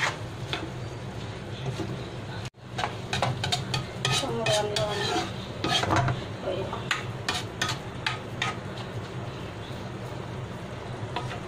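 Metal spatula scraping and clattering against a wok as purslane leaves are stirred into simmering coconut-milk curry, with a light sizzle. The clatters come in quick irregular strokes, over a steady low hum, and the sound cuts out for an instant about two and a half seconds in.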